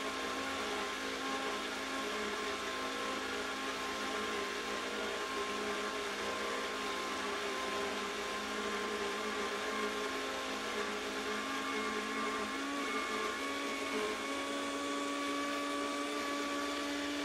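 Vitamix blender running steadily at high speed, blending a thick hummus mixture with the tamper pushed into the container. It gives a continuous motor whine, and its pitch shifts slightly a couple of times in the last few seconds.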